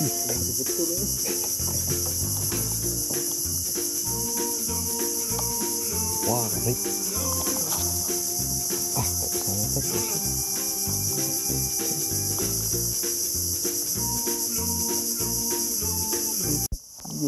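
A steady, high-pitched chorus of insects buzzing without a break, with a brief drop-out near the end.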